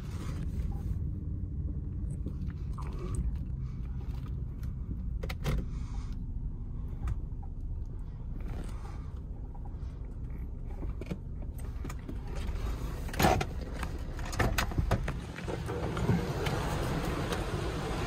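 Ryko Voyager II car wash running, heard from inside the car: a steady low rumble with a few knocks, then from about 15 seconds in, water spray drumming on the car's body and windshield.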